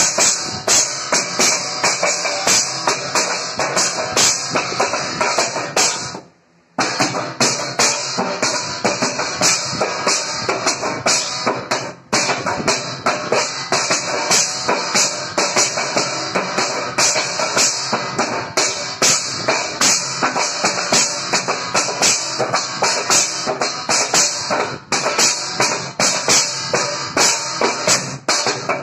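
A steel thali (metal plate) turned upside down and drummed with the hands like a tabla: a fast, dense run of rhythmic strikes. The playing breaks off briefly about six seconds in.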